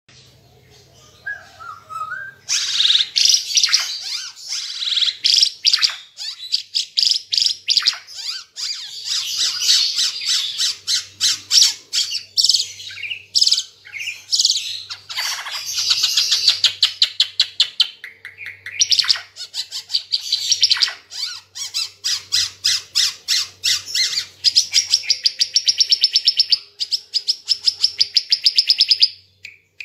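Ara Timor songbird singing a loud, fast, unbroken song of rapid high notes and trills, after a short soft call; the song ends in a long, even, rapid trill that stops just before the end.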